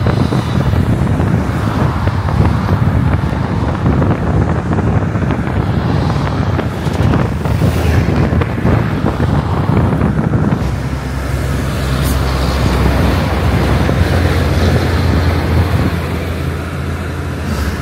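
Wind buffeting the microphone over the road noise of a moving vehicle, a loud, steady rush.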